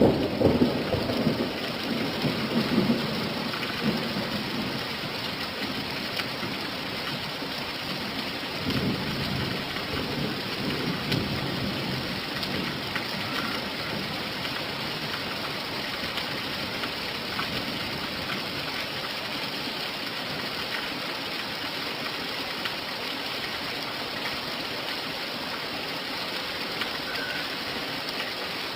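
Steady rain falling, an even hiss. Rolling thunder rumbles at the start, dies away over the first few seconds, and rolls again about nine seconds in.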